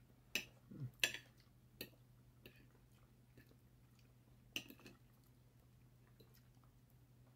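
Knife and fork clinking against a china plate while eating: a few sharp clicks, bunched in the first two seconds with the loudest about a second in, and another around four and a half seconds. A faint low hum runs underneath.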